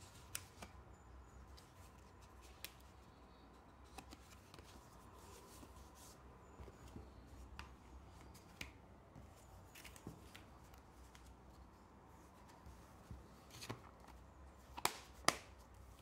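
Paper booklet pages handled and leafed through: faint rustles and small scattered taps. A few sharper clicks come near the end as a clear plastic disc case is handled.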